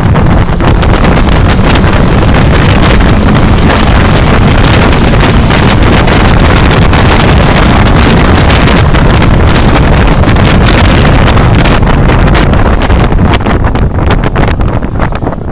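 Heavy wind buffeting on an in-car camera microphone in an open-top roadster, over the engine running hard under full load. The noise eases and becomes uneven about 13 seconds in as the car slows.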